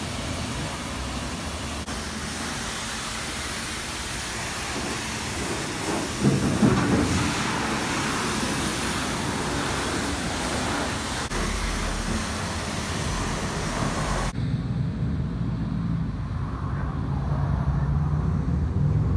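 High-pressure wand spraying water onto a white Dodge Ram pickup, a steady hiss that gets louder about six seconds in. After a sudden cut about fourteen seconds in, the Ram's engine runs as the truck drives slowly across a lot, growing louder near the end.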